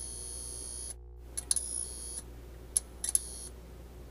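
Digital glitch sound effects for a logo intro: sharp clicks and short stretches of high-pitched electronic tone that cut off abruptly and start again, with a brief dropout to silence about a second in.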